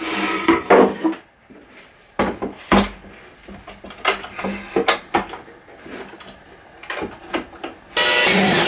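A hinged wooden cabinet door being handled and moved on a wooden workbench: scattered knocks and clunks of wood. A cordless drill starts running near the end.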